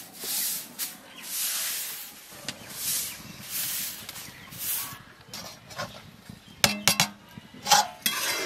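Short grass broom swept across a cement floor in repeated strokes, a swish a little more than once a second. Later, a few sharp metallic clinks of a spoon against an aluminium pan.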